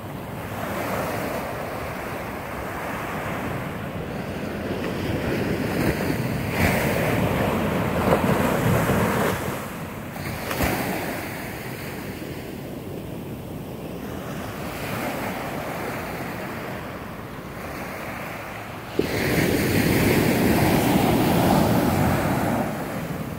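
Ocean surf breaking and washing up a sandy beach, a hiss that swells and ebbs in surges, loudest about a third of the way in and again from a sudden surge near the end, with wind on the microphone.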